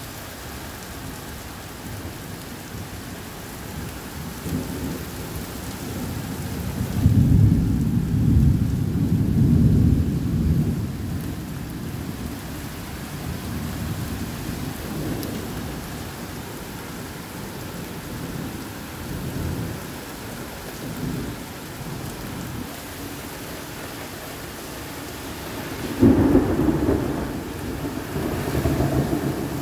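Heavy rain falling steadily during a thunderstorm. A long rumble of thunder rolls from about a quarter of the way in, and a sharper thunderclap breaks out near the end and keeps rumbling.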